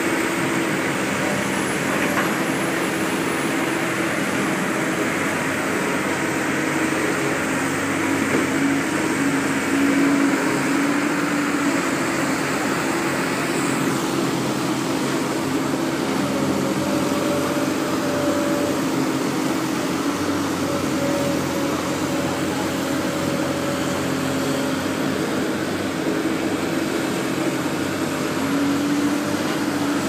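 Long-reach demolition excavator's diesel engine and hydraulics running steadily, with a droning tone that shifts in pitch a few times.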